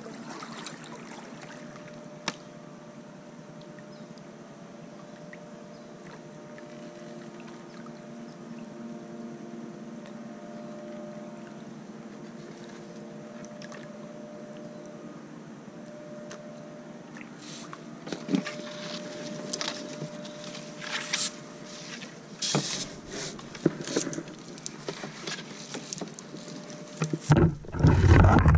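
Kayak being paddled through flooded brush: a steady low hum at first, then paddle strokes, drips and branches scratching along the hull and paddle in the second half. Near the end come loud knocks and rubbing as the paddle and boat push through low branches.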